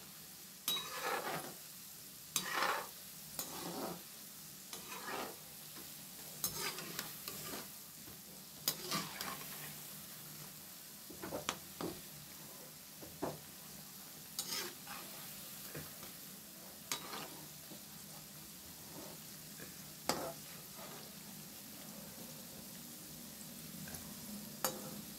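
Methi pakoras sizzling as they deep-fry in oil in a metal kadhai, partway through frying, with irregular scrapes and clinks of a spatula and a slotted skimmer turning them against the pan every second or two, fewer near the end.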